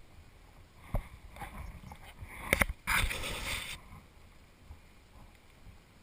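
Handling noise from working a wooden beehive: a knock about a second in, a quick run of sharp wooden clicks, then a short rustling scrape lasting under a second.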